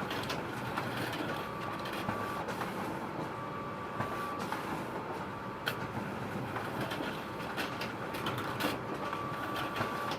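Photocopier running: a steady mechanical whirr with a thin high tone that comes and goes every couple of seconds and scattered light clicks.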